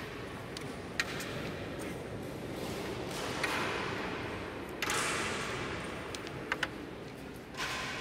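Carrom striker shot: sharp wooden clacks as the striker hits the carrom men, a close pair of clicks about two-thirds of the way through. A few other single clicks sound over steady background noise in the hall.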